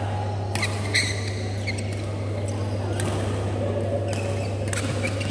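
Badminton shoes squeaking briefly on the court mat a couple of times, with a few sharp taps, over a steady low hum.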